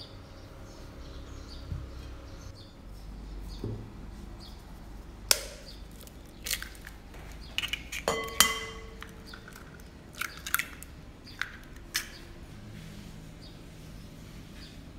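Eggs tapped against the rim of a glass mixing bowl and cracked open. A string of sharp knocks and clinks comes in two groups, and one clink near the middle leaves the glass ringing briefly. Faint bird chirps sound in the background.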